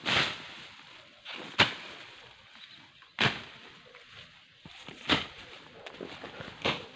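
A digging tool chopping into soil and undergrowth, five sharp crunching strikes about a second and a half apart.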